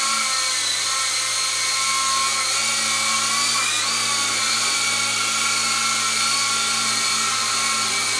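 Syma S37 Raptor remote-control helicopter hovering, its electric motors and rotor blades making a steady high-pitched whine, with a brief wobble in pitch about four seconds in.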